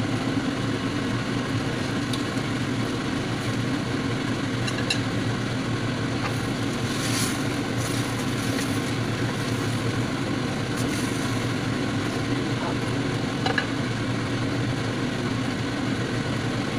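A steady low hum, with a utensil scraping and clinking against the inside of a stainless steel cooking pot being stirred about seven seconds in.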